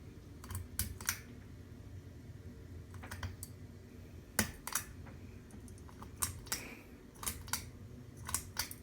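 Ceiling fan pull-chain switch clicking, in about six pairs of sharp clicks spread a second or so apart, over a low steady hum.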